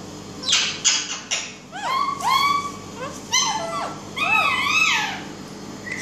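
Young Indian ringneck parakeets calling: a few harsh squawks, then a run of high, arching calls that rise and fall in pitch.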